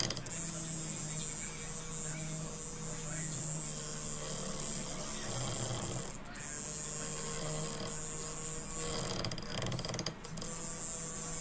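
Small DC motor of a homemade PVC-pipe mini grinder running, its wheel grinding the tip of a steel rod: a steady motor hum under a high hissing scrape. The scrape stops briefly twice, about six seconds in and near the end, as the wheel comes off the metal.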